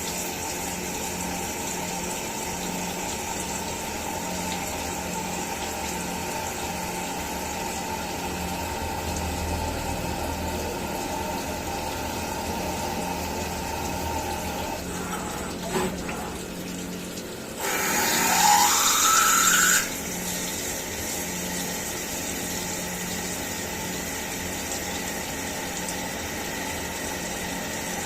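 CNC milling machine running steadily with a constant mechanical drone. About two-thirds of the way in, a loud hiss with a rising whine lasts about two seconds and then cuts off.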